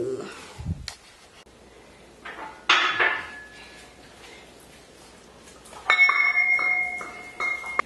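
Loaded barbell and iron weight plates being handled: a knock about three seconds in, then a loud metallic clank about six seconds in that rings on, and a smaller clink near the end.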